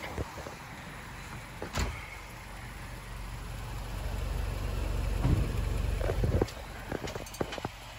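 A car engine idling close up: a low steady rumble that grows louder from about three seconds in and drops away suddenly about six and a half seconds in. A few sharp knocks and clicks are scattered through it.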